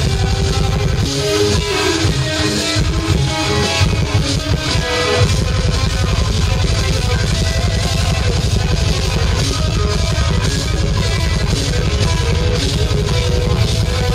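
A technical death metal band playing live: distorted electric guitars over a drum kit, loud and dense. About a second in, the heavy low end drops away for a few seconds, leaving guitar lines, then the full band comes back in.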